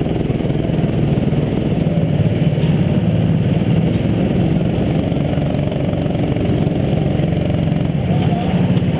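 Rental go-kart's small petrol engine running at steady low revs, heard close up from the kart itself as it rolls slowly into the pits.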